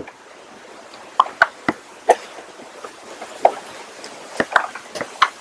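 Hands scooping potting soil out of a black plastic pot and dropping it around a transplanted seedling: a string of irregular short scrapes, taps and rustles of soil against the plastic.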